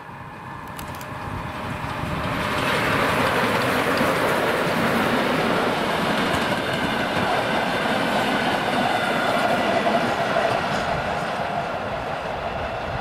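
Steam locomotive hauling a train of passenger coaches passing close by, wheels clattering along the rails. The sound builds over the first few seconds as the train approaches and eases off near the end as the coaches roll away.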